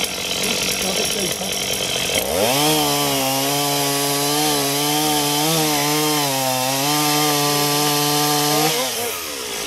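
Two-stroke chainsaw cutting through a tree trunk: it revs up to full throttle about two seconds in, holds a steady pitch while the chain bites through the wood, and drops back near the end.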